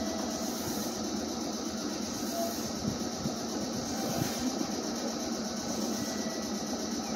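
Meitetsu electric commuter train pulling out of the station platform, a steady rumble of wheels and running gear with a few light knocks about three and four seconds in.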